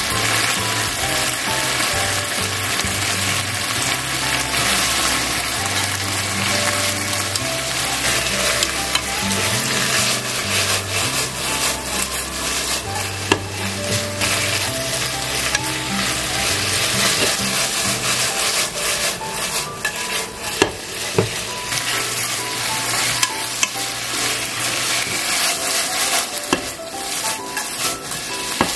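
Green bell pepper pieces sizzling as they are stir-fried in oil and sauce in a frying pan. The chopsticks stirring them click against the pan a few times.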